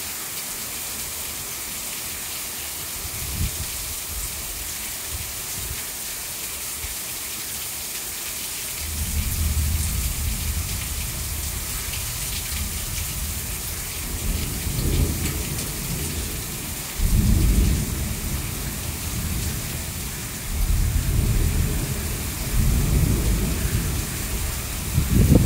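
Heavy rain pouring steadily, with water streaming off a roof edge, under a thunderstorm. From about a third of the way in, low rumbles of thunder come and go in several rolls, the strongest near the end.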